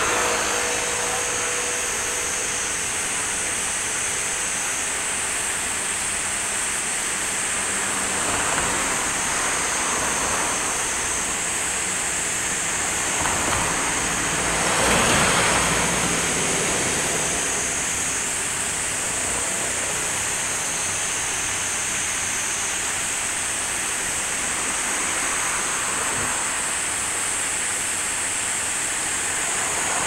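Steady rushing of river water pouring over low step weirs, a small cascade. About halfway through, a louder whoosh rises and falls over a couple of seconds.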